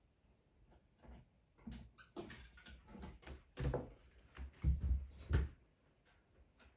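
Irregular soft knocks, thumps and rustles of capuchin monkeys handling a children's picture book on a carpeted floor, the loudest a few low thumps in the second half.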